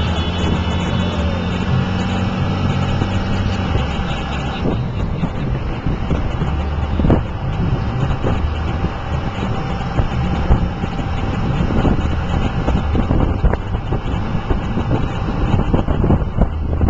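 Motor-scooter convoy and road traffic running steadily. A low engine hum gives way, about five seconds in, to a rougher, gustier rumble with scattered knocks.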